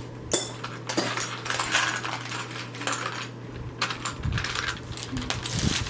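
Small plastic Lego bricks clattering and clicking as they are handled and sorted, a run of irregular light clicks with one sharper click about a third of a second in.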